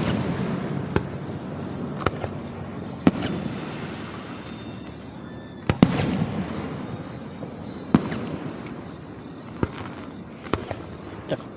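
Aerial fireworks shells bursting overhead: a string of sharp bangs at irregular intervals of one to two seconds, each followed by a rolling echo, the loudest about halfway through.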